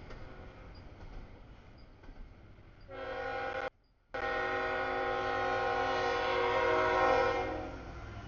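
CSX freight locomotive's multi-chime air horn sounding a long chord for the grade crossing. It starts about three seconds in, cuts out for a moment, sounds again and fades near the end.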